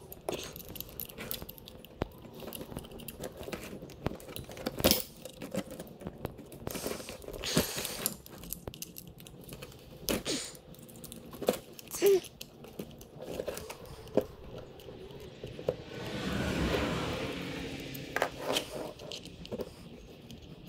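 Small metallic clicks, scrapes and handling noises of a 4 mm Allen key working screws out of the top plate of a dual fuel pump module. About three-quarters of the way through, a few seconds of louder rustling noise swell and fade.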